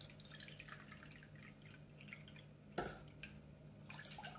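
Faint trickle of water poured from a kettle into a measuring cup, with one light knock about three seconds in. Near the end the cupful is tipped into a saucepan of sugar.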